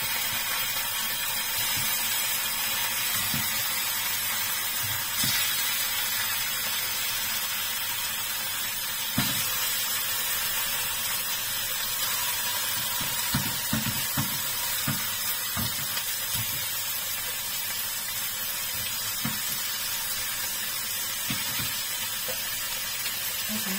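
Pieces of salmon belly sizzling steadily in hot oil in a nonstick frying pan as more pieces are laid in, with occasional soft knocks.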